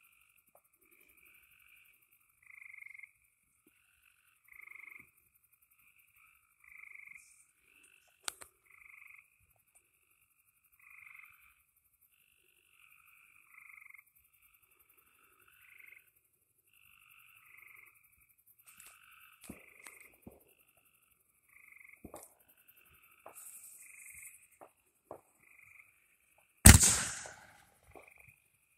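Frogs calling, one short call about every two seconds. Near the end a fireworks mortar shell launches from its tube with a single loud bang.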